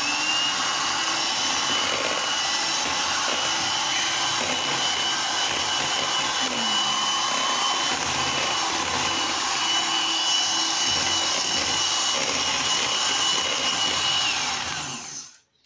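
Electric hand mixer running steadily, its beaters churning thick cupcake batter. The motor's whine climbs as it starts, holds level, then winds down and stops about a second before the end.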